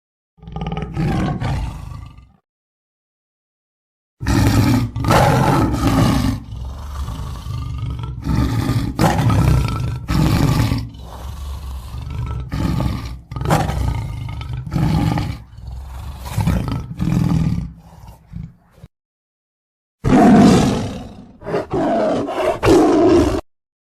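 Lion roaring, loud, in three bouts: a short one at the start, a long run of repeated roars from about four seconds in, and another short bout near the end, with dead-silent gaps between them.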